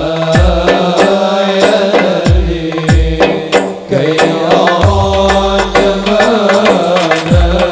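Sholawat, an Islamic devotional song, sung to a melody with drum accompaniment; deep drum strikes drop quickly in pitch, about five times.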